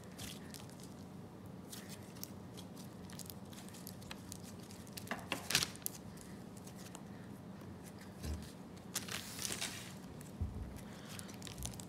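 Whipped slime (PeachyBbies Whipped Vanilla Sugar) squeezed and kneaded by hand, giving off soft squishes and crackles, with louder clusters of crackles about five and nine seconds in.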